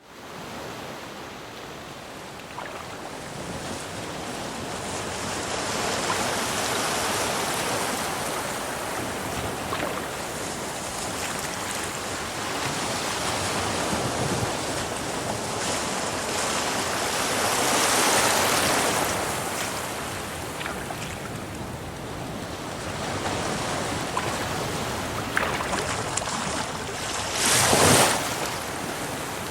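Ocean waves breaking on a shore: a continuous wash of surf that swells and eases every few seconds, with a short, louder burst near the end.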